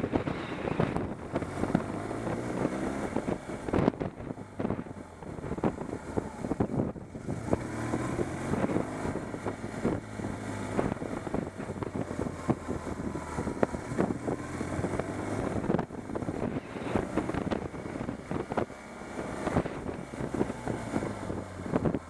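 Motorcycle engine running while riding, its pitch rising and falling through the bends, with wind buffeting the microphone.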